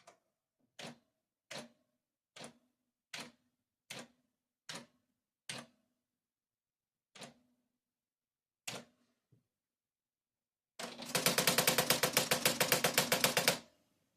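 Electric typewriter keys striking one at a time, about one every second, then a fast continuous run of strokes lasting nearly three seconds near the end, the loudest part.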